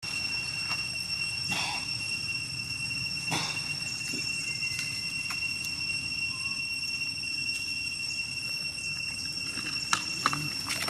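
Outdoor ambience: a steady high-pitched whine in two pitches over a low rumble. Near the end come a couple of sharp crackles of dry leaves as a baby macaque walks over them.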